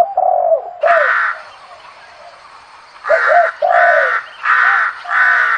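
Crow cawing: a harsh caw about a second in, then four caws in quick succession from about three seconds in, with lower, arching call notes at the start and between the first caws.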